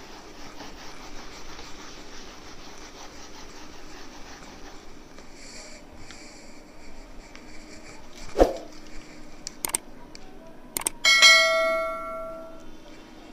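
A whiteboard duster rubbing across a whiteboard, then a sharp knock. Near the end come clicks and a bright bell ding that rings out for about a second and a half: the sound effect of a subscribe-button and notification-bell animation.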